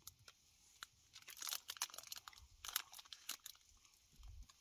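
Irregular crinkling and crackling of a chocolate bar's wrapper being handled close to the microphone.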